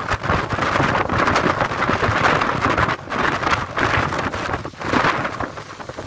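Strong gale buffeting the microphone, a loud rushing roar that swells and dips in gusts, mixed with the hiss of waterfall spray being blown back up the cliff by the wind.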